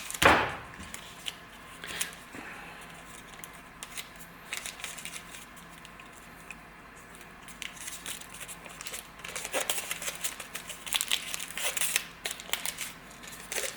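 Tape being pulled, torn and wrapped around a small chrome part by hand: crinkling and tearing, with a sharp knock at the start and the densest crackling in the last few seconds.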